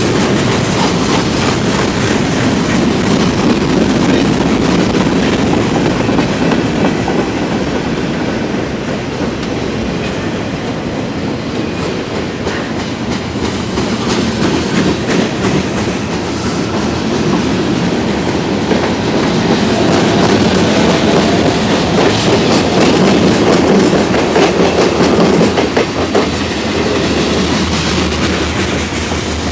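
Freight cars of a long manifest freight train rolling past close by. It is a steady rumble with many quick clicks of wheels over rail joints.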